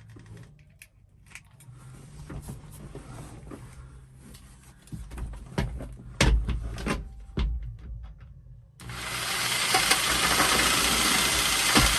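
Scattered clicks and knocks of a tool being handled and positioned. About three-quarters of the way through, a jigsaw starts abruptly and runs steadily and loudly as it cuts.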